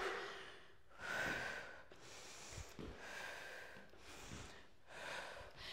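A woman breathing hard from exertion mid-exercise: a string of quick, audible breaths in and out, about one a second.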